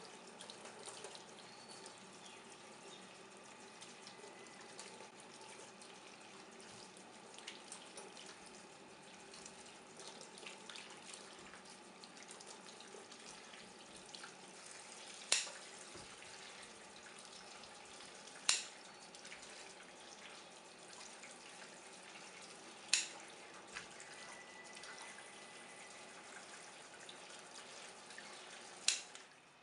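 Tap water running steadily into a stainless steel sink over cooking bananas in a colander, with hands rubbing and turning them as they are washed. Four sharp knocks, the loudest sounds, come in the second half: twice a few seconds apart about halfway through, once more a few seconds later, and once near the end.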